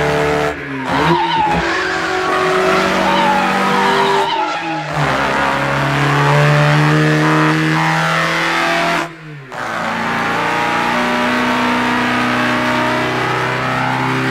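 Racing car engines running hard at speed, their note rising and falling, with tyre squeal in the first few seconds. The engine sound breaks off and comes back at a different pitch a few times.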